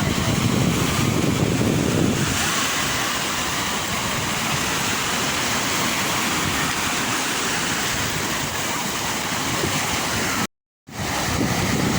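Sea waves rushing and washing as a steady hiss of water, with a low rumble of wind on the microphone in the first two seconds. The sound cuts out completely for a moment near the end.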